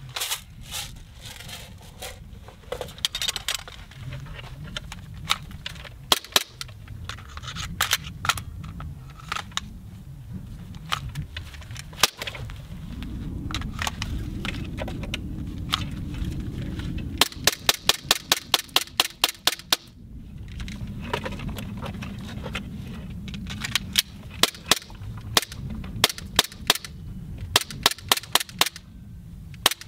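Airsoft guns firing: scattered single shots, a fast string of about fifteen shots in under three seconds around the middle, and another run of single shots near the end, when a Glock 17 gas pistol is aimed over cover.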